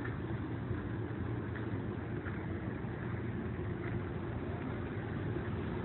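Steady low drone of running machinery with a constant hum, like an engine idling.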